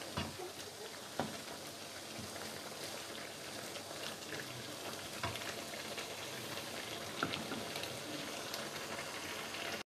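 Prawns frying in a thick masala in a non-stick wok: a steady sizzle and bubble as the liquid cooks down, with a few light knocks of a wooden spatula stirring against the pan.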